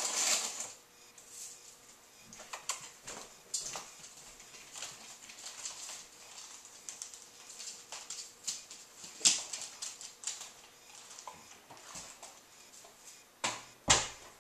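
Irregular crunching clicks of a praying mantis chewing through a large beetle's hard shell, with a louder knock near the end.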